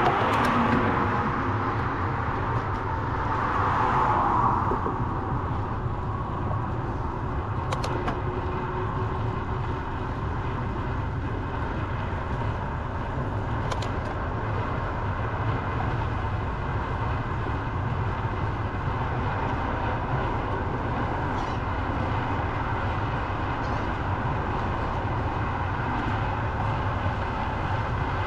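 Road traffic and wind on the camera microphone, heard from a moving bicycle. There is a steady low rumble, and vehicles sweep past, loudest at the start and again about four seconds in.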